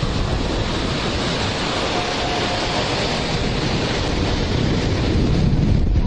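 Wind rumbling on the microphone over the steady noise of surf breaking on a sandy shore.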